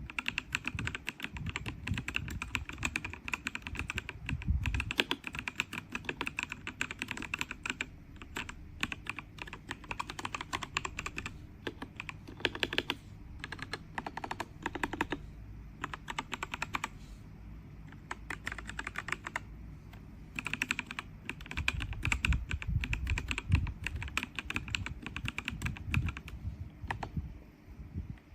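Typing on a DEKAY DK98 Pro wireless mechanical keyboard: fast runs of keystroke clicks broken by short pauses.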